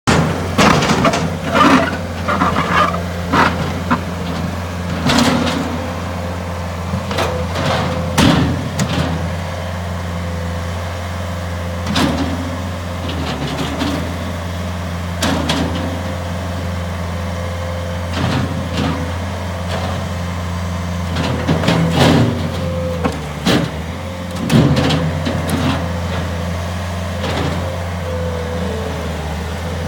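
Bobcat S220 skid-steer loader's diesel engine running at a steady speed, with repeated sharp knocks and clanks over it.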